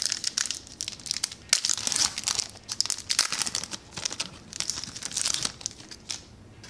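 Wrapper of a 2018 Bowman baseball card pack crinkling and tearing as it is ripped open by hand and the cards are pulled out; the crinkling stops near the end.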